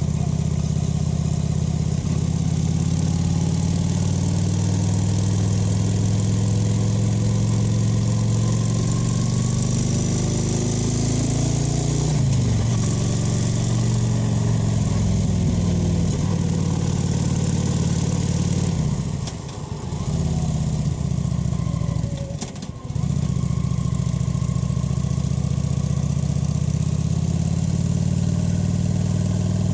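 Kawasaki VN 900's V-twin engine and exhaust running under way, the note rising and falling as the revs change. About two-thirds of the way through it briefly drops away twice as the throttle eases off, then picks up again.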